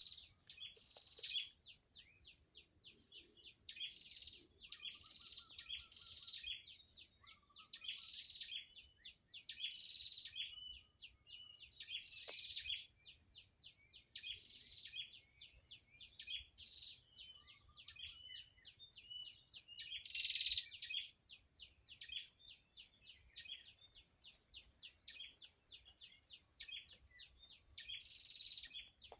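Birds chirping and singing: a fast, steady run of short high chirps, with louder phrases about every two seconds and a lower-pitched call now and then.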